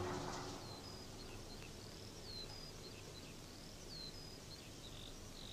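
The tail of a choir fades out in the first half second. Then comes faint birdsong over a quiet outdoor background: short high chirps and whistles, some slurring downward.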